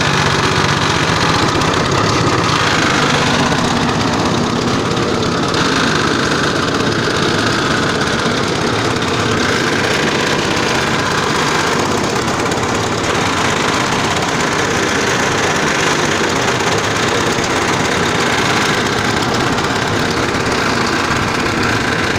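Multifunction animal-feed chopper and mixer machine running, a loud steady mechanical drone.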